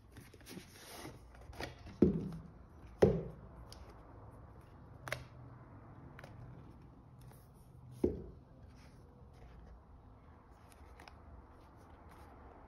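Cardboard and leather-look watch packaging handled by hand: rubbing and light clicks as a sleeve slides off and a hinged box is opened. There are a few sharp knocks, the loudest about two and three seconds in and another about eight seconds in.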